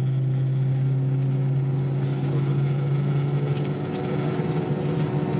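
Steady drone inside an Airbus A320 passenger cabin on the ground: a constant low hum with a few fixed higher tones over faint air noise, growing rougher about three and a half seconds in.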